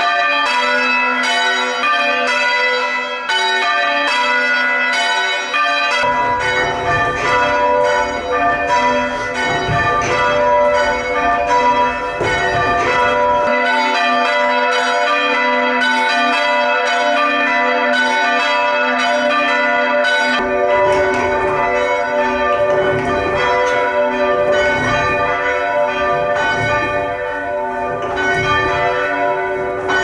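A ring of church bells rung full-circle in rounds, picked up close in the belfry: each bell strikes in turn in an even, unbroken sequence, the strokes overlapping in long hums. A low rumble comes and goes under the bells.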